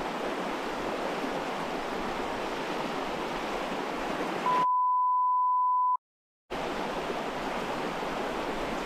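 A shallow rocky creek rushing over stones. About halfway through, a steady 1 kHz censor bleep sounds for about a second and a half with the water sound cut out, followed by half a second of dead silence before the creek comes back.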